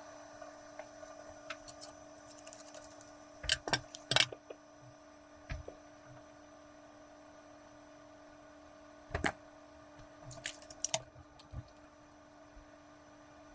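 Scattered small clicks and taps of craft things handled on a tabletop during hand-sewing, over a steady electrical hum. The clicks come in a quick cluster about a third of the way in and again twice later on.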